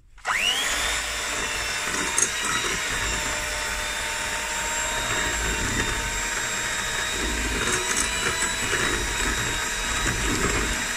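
Electric hand mixer switched on, its motor whine rising as it spins up, then running steadily as its beaters whisk eggs and caster sugar in a glass bowl.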